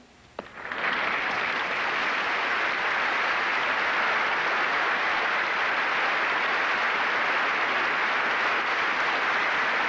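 Studio audience applauding, starting about a second in and then holding steady.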